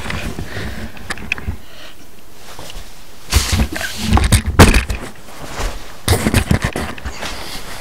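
Two bursts of rustling and handling noise, the first about three seconds in with a sharp knock near its end, the second about six seconds in, over a steady hiss.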